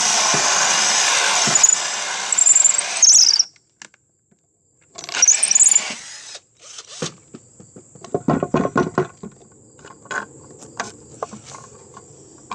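Electric drill boring a hole, running steadily for about three seconds with the bit squealing near the end, then a second short burst of drilling. Afterwards come scattered clicks and rattles of handling, over the steady chirping of crickets.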